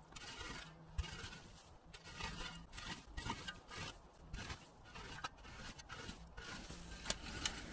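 A shovel scraping and scooping loose leaf litter and forest-floor debris, in repeated rough strokes roughly once a second.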